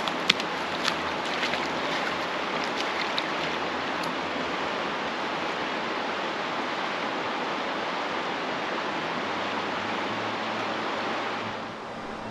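Steady rushing of a river's current flowing past, with a few light crackles and clicks in the first few seconds from footsteps through dry bank grass. The rush drops in level a little near the end.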